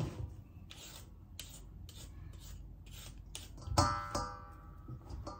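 Soft background music with a plucked guitar chord about four seconds in and again near the end, over faint clicks and scraping.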